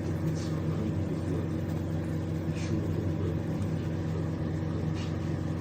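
Microwave oven running: a steady low electrical hum.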